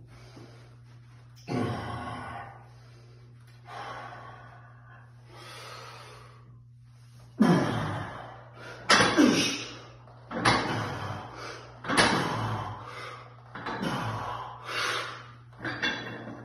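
A weightlifter's heavy, forceful breaths as he sets up over a 227.5 kg deadlift bar. The first few are softer and spaced out; from about halfway they come loud and sharp, roughly one every second and a half, as he braces before the pull, over a steady low hum.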